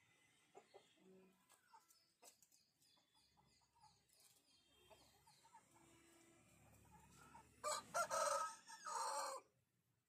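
An Aseel rooster crowing once, near the end, a loud pitched call lasting about a second and a half, over otherwise faint background ticks.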